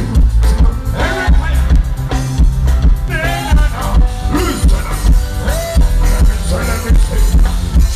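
Loud music over a concert sound system: a heavy, pulsing bass beat with a sung melody above it.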